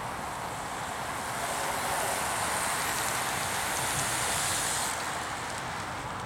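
Outdoor rushing noise of wind on the microphone and the hiss of road-bike tyres as a group of racing cyclists passes close by. The noise swells and then cuts off suddenly about five seconds in.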